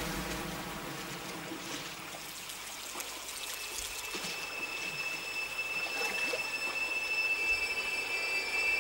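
Stream water rushing and splashing. About three seconds in, a high sustained note enters and holds over it.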